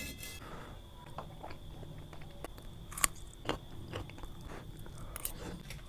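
A person biting and chewing food, with a few sharp crunches, the clearest about three seconds in.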